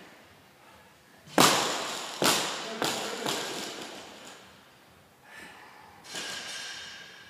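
Loaded barbell with rubber bumper plates dropped from overhead onto a rubber gym floor. One heavy thud lands about a second and a half in, then the bar bounces three times, each bounce smaller.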